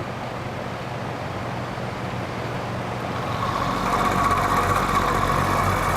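Vintage Penncrest (Lakewood) box fan running on medium, its motor humming with a rattle that grows louder a little past halfway as the fan is tilted back. The rattle comes from the motor's rear thrust washer, which the owner takes to be defective.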